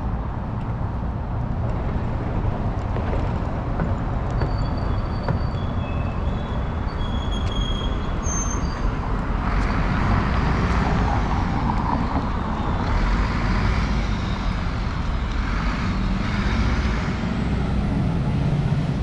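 City street traffic with a steady low rumble. From about halfway it gets louder as a city bus passes, and a high whine rises and falls several times.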